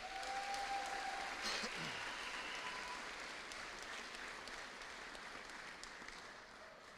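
Audience applauding, starting right away and slowly dying out.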